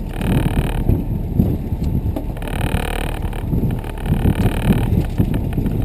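Wind buffeting the camera microphone over the steady run of a fishing boat's motor at trolling speed, a dense low rumble with two brief stretches of brighter hiss.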